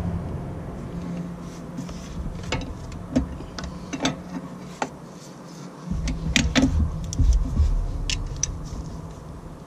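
Irregular metallic clicks and clinks as a socket wrench on a long extension knocks against engine parts while being worked onto a hidden bolt, under a low background rumble.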